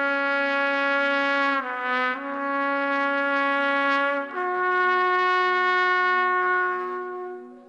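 Trumpet playing slow, long held notes over a steady low sustained note, dipping briefly in pitch a little under two seconds in, moving to a new note about four seconds in and fading out near the end.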